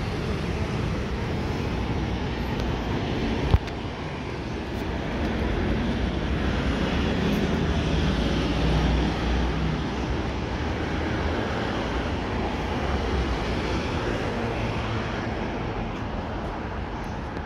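City street traffic noise, a steady rumble that swells for several seconds around the middle as a vehicle passes, then settles. A single sharp click comes about three and a half seconds in.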